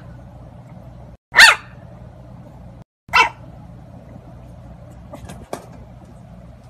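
Puppy barking twice, two short high barks falling in pitch, a little under two seconds apart.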